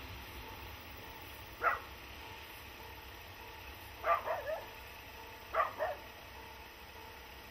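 A dog barking six times in short bursts: once, then three quick barks, then two more, over a faint steady hum.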